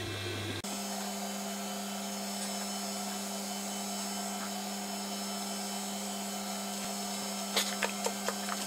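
Steady electrical hum, which jumps up in pitch about half a second in and then holds, with a few light clicks near the end.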